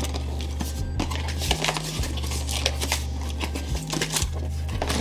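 Cardboard speaker box being opened and handled, its flaps and tabs rustling and clicking over and over, over music with a deep bass line.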